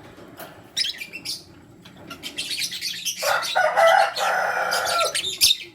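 A pair of lovebirds, one a lutino, chirping: a few short, shrill chirps, then a rapid run of chirps with a longer, harsh, raspy call from about three seconds in until near the end.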